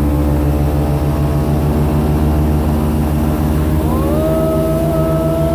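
Airboat's engine and open air propeller running loudly and steadily under way. About four seconds in, a higher whine rises and then holds steady on top of the engine.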